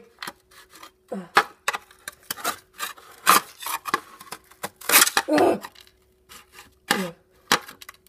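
Metal butter knife and fork scraping and sawing through a crumbly microwave-baked cookie against a ceramic plate, in quick, irregular strokes.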